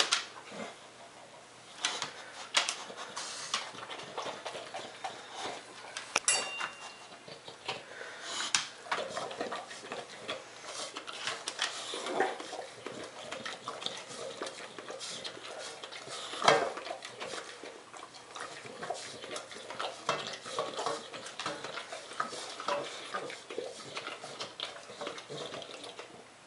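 English Bulldog eating from a stainless steel bowl: its muzzle knocks and pushes the metal bowl in irregular clatters and clinks, with a brief ring about six seconds in and the loudest knock about sixteen seconds in.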